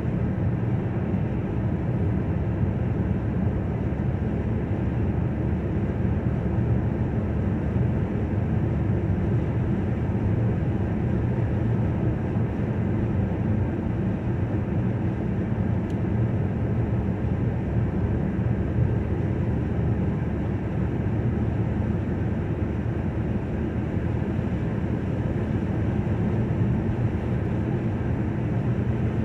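Steady road noise inside a moving car: tyres on the road and the engine at cruising speed, a deep, even sound with no breaks or sudden events.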